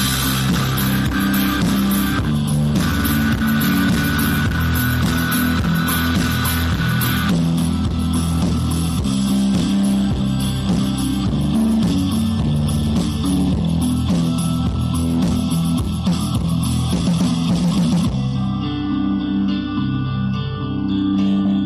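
Instrumental background music led by guitar over a bass line that moves from note to note. About eighteen seconds in, the bright upper range drops away and the music thins out.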